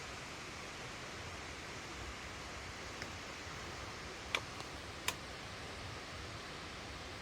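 Steady rushing noise of Kalambo Falls' single-drop waterfall. A few short sharp clicks come about halfway through.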